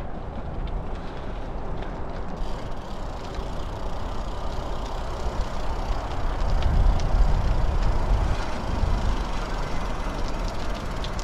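Wind rushing on a GoPro's microphone with the rolling noise of a gravel bike being ridden, a steady rumble that grows louder about six seconds in.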